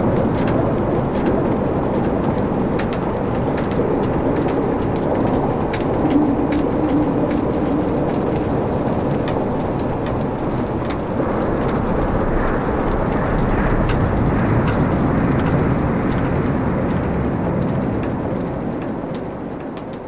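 Log fire burning in a fireplace: a steady rush of flames with frequent sharp crackles and pops from the burning wood, easing off a little near the end.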